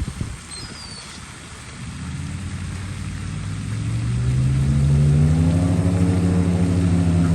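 A motor vehicle engine grows louder and rises in pitch from about two seconds in, then runs steadily at a higher pitch. A couple of brief high bird chirps come near the start.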